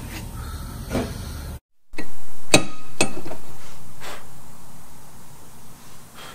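A few sharp metallic clinks and knocks as a slotted brake rotor is handled on the wheel hub, over a loud hiss that slowly fades.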